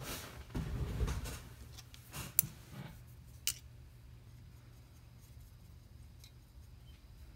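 Handling sounds of watercolour materials on a tabletop: a rustle with low knocks in the first second and a half, then two sharp clicks about a second apart as the brush goes to the metal paint tin, then faint room tone while paint is mixed.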